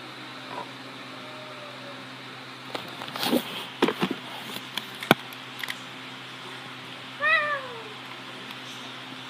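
Domestic cat meowing to be let out of a closed room: faint meows early, then one clear meow falling in pitch about seven seconds in. A cluster of loud knocks and scuffs comes about three to four seconds in, with a single sharp click just after.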